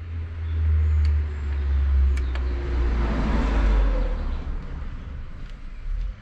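A motor vehicle driving past: a low engine rumble that drops in pitch, under a rush that swells to a peak about three to four seconds in and then fades, cutting off abruptly at the end.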